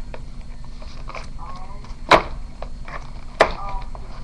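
Packaging of a multitool being handled and pried at, with two sharp clicks or knocks about a second and a half apart and faint squeaks between them, over a low steady hum.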